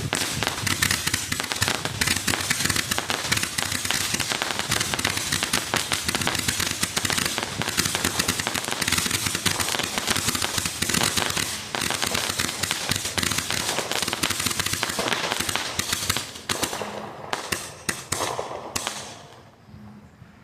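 Consumer firework going off in a dense, rapid crackle of pops, thinning to a few separate cracks after about sixteen seconds and dying out near the end.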